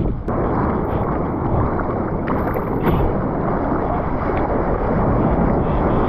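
Seawater sloshing and rushing around a camera held at water level in shorebreak surf: a steady loud wash of waves and churning whitewater foam, with a brief dip just after the start.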